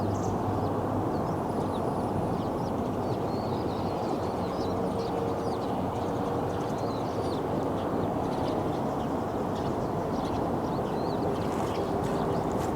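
Steady rush of flowing river water, with faint high chirps scattered through the middle stretch.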